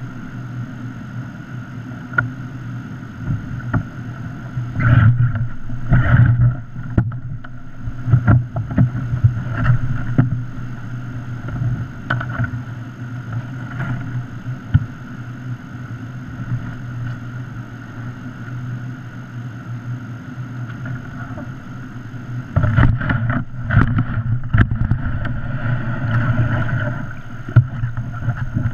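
Steady rush of whitewater rapids, with scattered knocks of a plastic whitewater kayak and its paddle. A cluster of louder thumps about 23 seconds in, as the kayak slides off the rock ledge into the water.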